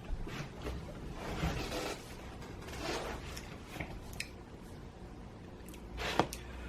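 Chewing extra-crispy pizza: irregular soft crunching and mouth noises, with a sharp click about six seconds in.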